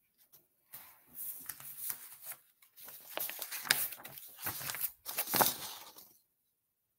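Sheets of paper cue cards rustling and crinkling as they are handled and swapped, in a run of crackly rustles that starts about a second in and stops about six seconds in.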